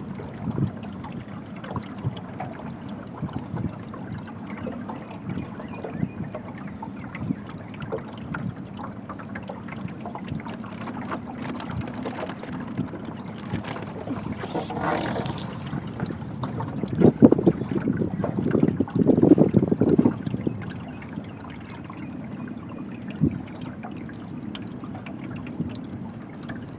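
Small boat moving through floodwater: water lapping and splashing against the hull, with wind on the microphone. There are louder uneven splashes and knocks about two-thirds of the way through.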